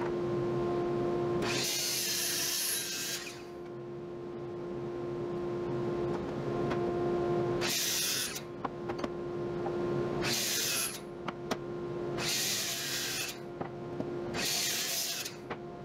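An electric router runs at a steady high pitch and cuts into hardwood in five separate bursts of harsh noise, each about a second or two long. A few sharp clicks fall between the later cuts.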